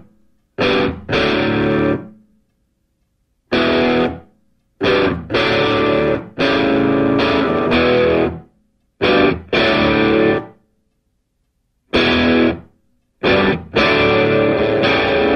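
Background music played in short stop-start phrases, each cut off abruptly into a second or so of silence, about six times.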